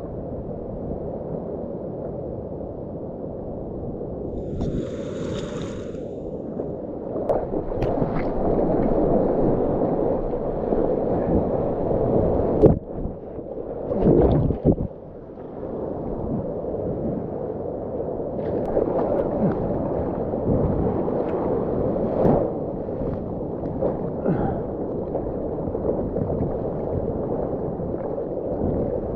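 Seawater sloshing and rushing against a mouth-held GoPro as a surfer paddles a longboard out through small surf. About halfway through, a breaking wave's whitewater washes over the camera in a loud splash, briefly dulling the sound before the steady wash of water returns.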